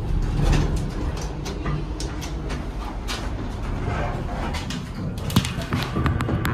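Heights elevator clattering, with many sharp clicks and knocks over a steady low rumble.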